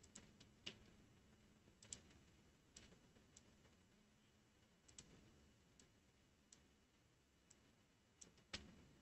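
Faint computer mouse clicks, about ten of them at irregular intervals, over near silence.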